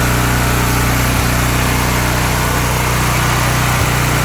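Honda portable generator's engine running steadily at a constant speed. Two faint clicks come through, about a second in and near the end.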